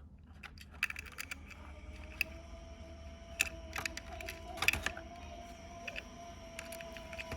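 Irregular small clicks, taps and rattles of wires, terminals and parts being handled during wiring work, with a few sharper knocks about two, three and a half and four and a half seconds in. A faint steady tone sounds underneath from about a second in.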